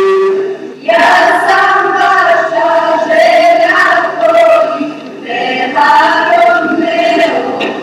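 Teenage boys singing into a microphone, ending on a held note. About a second in it cuts to a small group of young women singing a song together, in phrases with short breaths between them.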